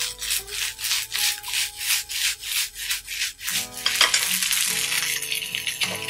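A spatula scraping and turning ketchup rice in a nonstick frying pan in quick regular strokes, about four a second. After about three and a half seconds the strokes give way to the rice sliding and rustling as the pan is shaken. Soft background music plays underneath.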